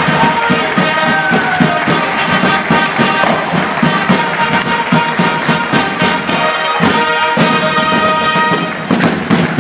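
Marching brass-and-drum music, with held brass notes over a steady drumbeat; a little before the end the brass stops and the drums carry on alone.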